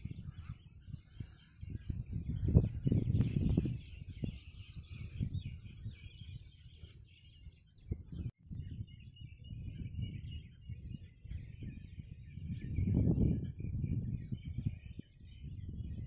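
Outdoor woodland ambience: a steady high insect buzz with scattered small-bird chirps, under irregular low rumbling noise that swells a couple of seconds in and again near the end. The sound cuts out for an instant just past halfway.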